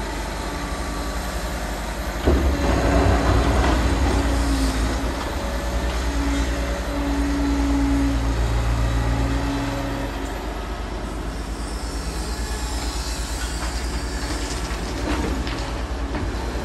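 Liebherr R940 Demolition excavator working, its diesel engine and hydraulics running steadily with a deep rumble, with a sudden loud clatter about two seconds in and a steady tone coming and going in the middle.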